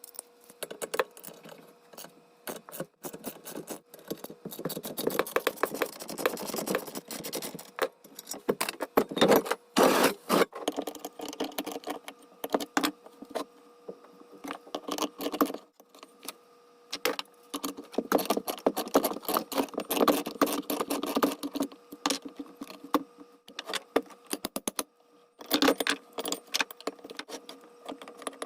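Small metal lathe parts and tools clinking and rattling as they are handled in quick, irregular succession, with a faint steady hum underneath.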